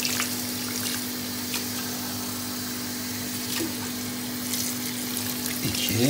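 Water poured from a drinking glass into a stainless steel pot of black mulberries and sugar, running and splashing onto the fruit.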